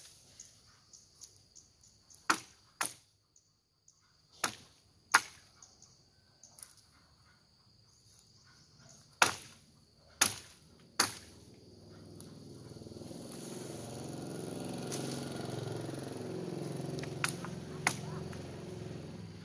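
Machete blows striking bamboo and brush: sharp single chops, about seven spaced a second or more apart, then a stretch of rustling as cut stems and leaves are handled, with two more strikes near the end. Insects chirr faintly and steadily.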